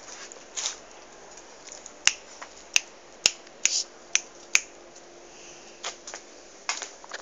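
Fingers snapping: six sharp snaps, about half a second apart, in the middle of the stretch, with a few softer clicks before and after.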